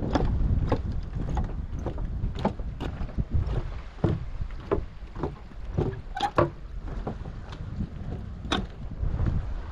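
Footsteps on a wooden boardwalk, sharp knocks on the planks at about two a second over a steady low rumble.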